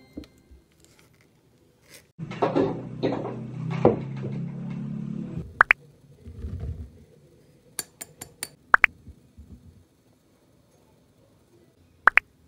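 Dry ingredients tipped from a glass bowl into a stainless steel mixing bowl: a rustling pour lasting a few seconds, then several sharp clinks of glass knocking against the steel bowl's rim, each with a short ring.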